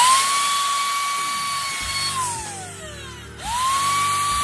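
Einhell router fitted with a roundover bit starting up and running at a steady high whine. A little past two seconds in it is switched off and spins down with a falling pitch, then it is started again about a second later and runs back up to speed.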